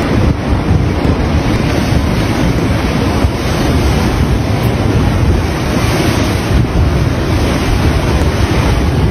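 Large waves surging in and breaking against a seawall, a continuous rushing of water, with wind buffeting the microphone.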